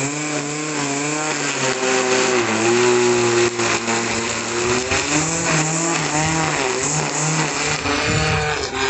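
Tramontina AP1000T corded electric string trimmer running while cutting grass, its motor whine sagging and rising in pitch as the nylon line meets the grass.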